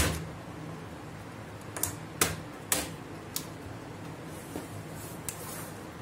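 Plastic snap clips of an HP Pavilion 15 laptop's bottom base cover cracking loose as it is pried off with a plastic pry tool. About six sharp cracks, the loudest at the start, the rest spread over the next few seconds. The cracking is normal and does no harm.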